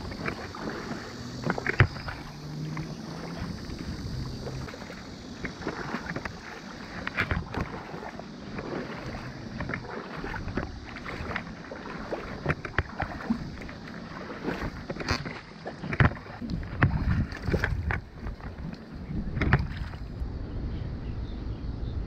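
River water lapping and splashing close to the microphone, with scattered small knocks and, near the end, wind rumbling on the microphone.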